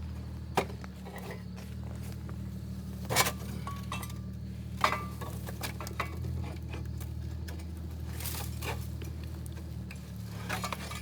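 Car engine idling steadily, with a handful of light, scattered clinks and knocks over it.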